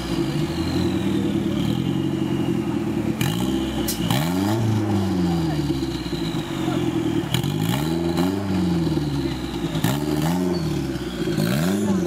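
Engine of a mud-bogging 4x4 off-road competition vehicle revved hard up and down, again and again about every two seconds, as it claws up through deep mud. A few sharp knocks and clatters come from the vehicle working over the ground.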